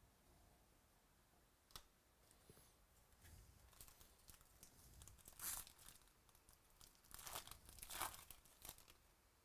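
Foil trading-card packs being torn open and their wrappers crinkled, in short rustling bursts; the loudest come about five and a half and eight seconds in.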